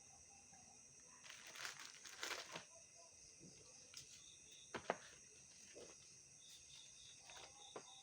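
Packaging being handled during an unboxing: crinkling and rustling of wrapping for a second or so, then a few sharp clicks. Faint steady insect chirping runs underneath.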